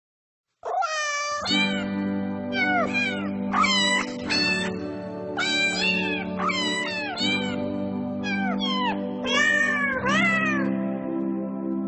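Cats meowing again and again, about a dozen drawn-out meows with rising and falling pitch, starting about half a second in, over a steady background music track.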